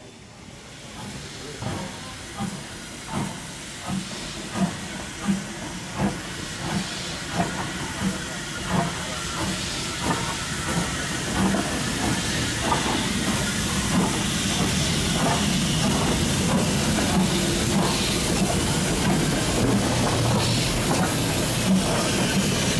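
BR Standard Class 4MT tank steam locomotive working away under steam: exhaust chuffs about 0.7 s apart at first, coming quicker as it gathers speed, with a steady steam hiss. It grows louder throughout, and after about twelve seconds the beats blur into a continuous rush of exhaust.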